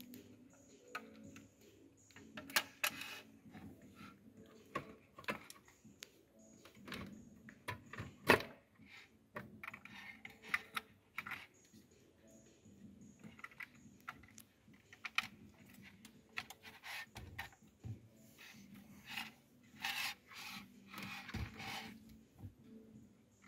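Irregular clicks, taps and rustles of plastic wiring connectors and cables being handled and pushed into the back of an aftermarket car stereo head unit, with one sharp click about eight seconds in.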